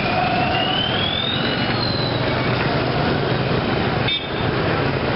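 Busy street traffic dominated by small motorcycle engines passing, a steady running mix with a car among them. A thin high tone rises slowly over the first couple of seconds.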